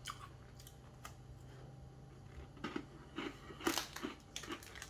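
Chewing a hard, crunchy all-butter cookie: irregular sharp crunches that come a few times a second from a little past halfway on.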